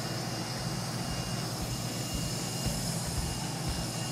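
Mobile crane's diesel engine running steadily under load while a precast concrete wall panel hangs from its hook.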